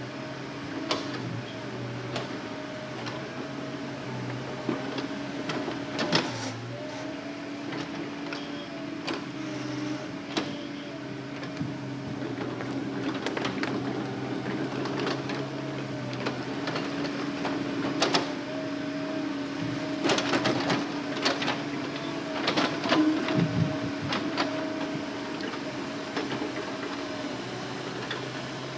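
Hitachi Zaxis excavator running as it loads logs: a steady engine and hydraulic hum with a slightly wavering whine, and scattered knocks and clicks that come thicker in the second half.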